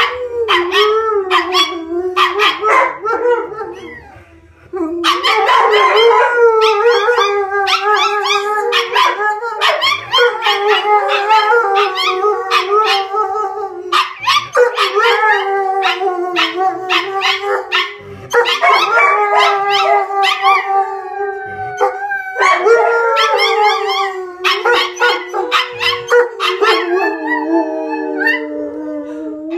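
An Alaskan Malamute howling in long drawn-out howls, together with a Pomeranian-Chihuahua mix joining in with many short high yips and barks. Both dogs briefly fall quieter about four seconds in, then howl on together.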